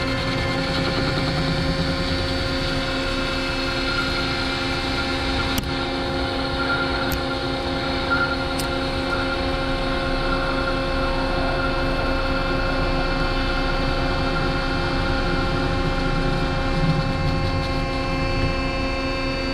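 CNC lathe spindle spinning a headless Grade 8 bolt while the tool faces off its end: a steady machine whine of several tones, with a single sharp click about five and a half seconds in.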